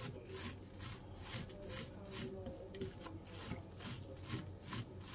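Kitchen knife blade scraping and chopping through a mound of sculpin roe on a cutting board, in short repeated strokes about three a second.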